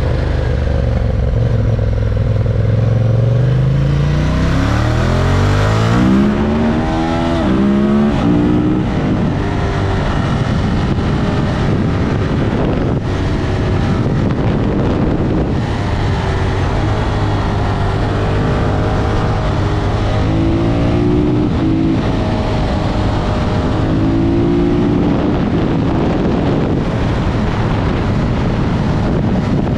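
Ducati Monster 1200 S's 1198 cc Testastretta V-twin pulling hard, its note climbing in steps through the gears over the first several seconds. It then runs at a steadier pace with a couple of shorter rises, under a rush of wind noise.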